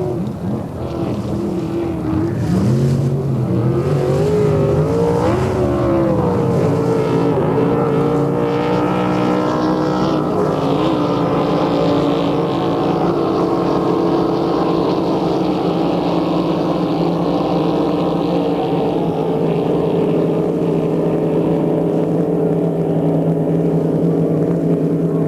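Motorboat engine running at speed. Its pitch wavers up and down for the first few seconds, then holds steady.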